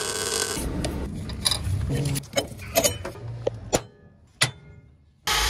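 Arc welder crackling on the steel engine-mount plate for about two seconds, followed by a few sharp metallic clinks and taps. A power drill starts up suddenly just at the end.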